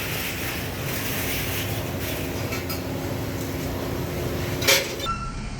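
Workshop machine hum running steadily, with a few light metal clinks and one sharp metal clank near the end, from metal kettle parts being handled.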